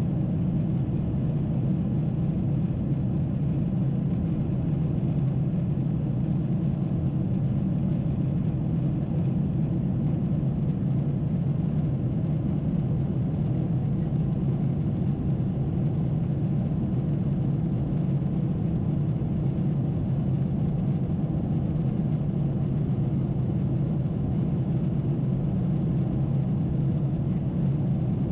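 Steady cabin drone of a Boeing 747-8 climbing out: its GEnx engines and the airflow over the fuselage, heard from a window seat over the wing as an even low rumble.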